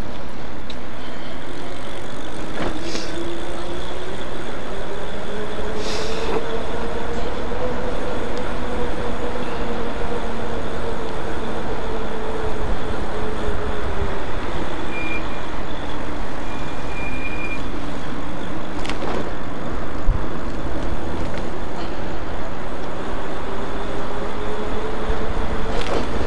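Electric bike motor whining at speed, its pitch rising, falling and rising again with the speed of the ride, over steady wind and road noise. A few sharp knocks break in now and then.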